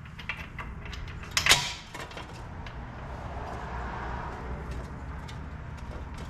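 Metal wheel-hub bolts being handled, with small clicks and a sharp clink about a second and a half in, then a quieter, steady scraping as a bolt is worked into place.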